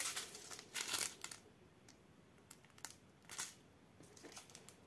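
Small plastic bags of diamond-painting drills crinkling as they are handled and shifted on the canvas. The crinkling comes in a few short, faint bursts: at the start, about a second in, and again around three and a half seconds, with light ticks between.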